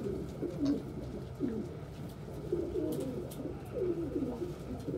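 Domestic pigeons cooing, low warbling coos that rise and fall and overlap one another throughout.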